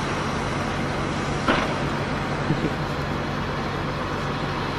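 An engine running steadily, with a sharp knock about a second and a half in and a lighter one shortly after.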